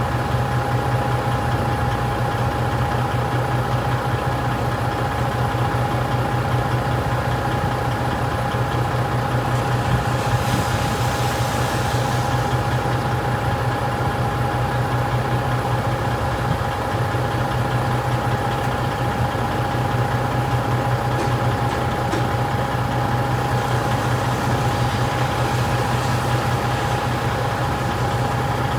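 Delivery truck's diesel engine idling steadily, with a constant thin whine above it. A brief hiss rises over it about ten seconds in.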